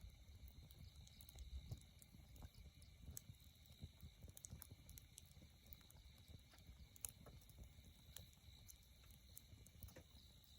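Wood campfire crackling faintly, with irregular small pops, over a low rumble and a faint steady high tone.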